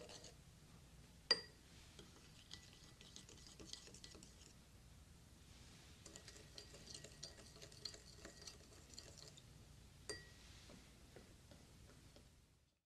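Plastic spoon gently stirring water in small glass bowls: faint scraping and light ticking, with two sharper clinks against the glass, about a second in and near the end, each ringing briefly.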